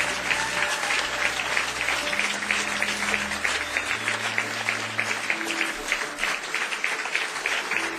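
Concert audience applauding: many hands clapping in a dense, steady patter.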